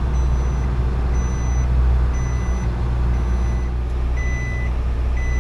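Isuzu truck's diesel engine running steadily, heard from inside the cab, with an electronic warning beeper sounding short beeps about once a second; the beep turns lower-pitched about four seconds in.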